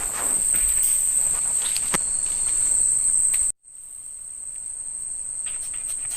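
Night insects in the forest chirring as one continuous high-pitched drone, with a few faint clicks. The drone cuts out abruptly about three and a half seconds in, then comes back quieter.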